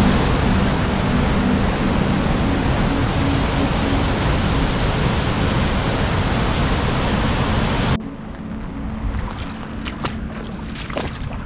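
River Nevis in spate, white water rushing and rumbling loudly and steadily over boulders in a rocky gorge. About eight seconds in the sound cuts to a quieter scene of wind with irregular splashes and knocks of boots stepping through puddles on a waterlogged path.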